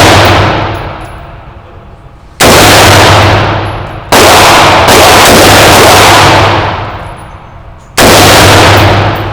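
AR-15 rifle firing single shots at an uneven pace, about four in all, each crack followed by a long echo that dies away over a second or two.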